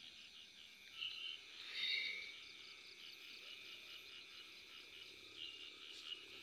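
Faint chorus of crickets chirping at night: steady, quick, evenly repeating high-pitched pulses, swelling a little about one and two seconds in.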